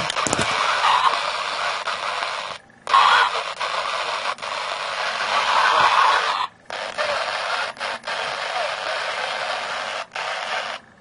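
Yaesu VX-6 and Zastone ZT-2R handheld radios receiving around 3 MHz shortwave through their small speakers: a steady hiss of static with a faint voice coming through at times. The hiss cuts out briefly about three times.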